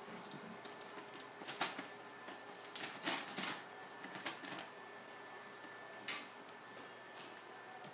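Irregular short clicks and taps, a handful over several seconds, as a small dog and her puppy move and nuzzle in their pet bed, over a faint steady hum.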